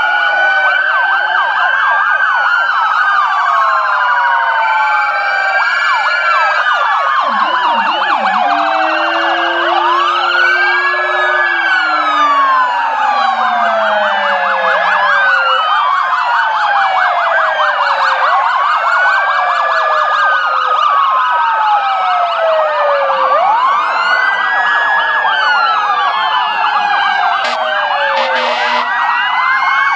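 Many police car sirens wailing at once, their rising and falling tones overlapping continuously. About ten seconds in, a deeper siren rises and then slowly falls away.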